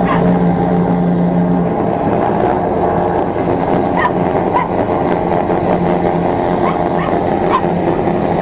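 The 13-horsepower engine of a high-pressure sewer jetter runs steadily under load, pushing water through the hose into the drain pipe at close to 300 bar. A startled dog yelps and barks several times over the noise in the second half.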